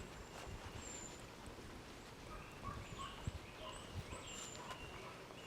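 Wild birds calling: many short, high chirps and whistled notes repeating over a faint low rumble.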